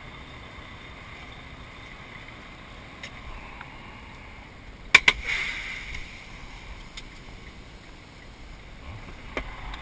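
Steady low running of a semi truck's diesel engine heard inside the cab. About halfway through come two sharp clicks in quick succession, followed by a short hiss.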